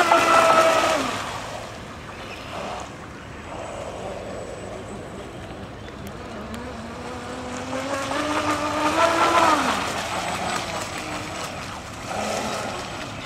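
Boat motor running at speed as a pitched whine. It is loud at first and fades, then comes back about seven seconds in, climbing in pitch and growing louder before dropping away near the ten-second mark. A hiss of water and wind runs in between.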